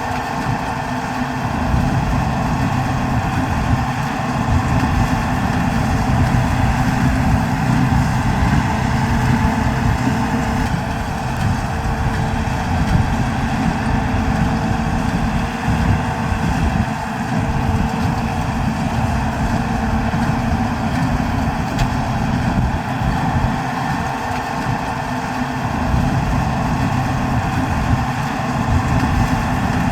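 New Holland TD110D tractor's diesel engine running steadily.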